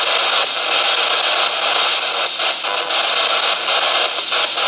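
Radio static from an SBox ghost box scanner sweeping the FM band: a loud steady hiss broken by brief dropouts as it steps between frequencies, with no radio stations coming through.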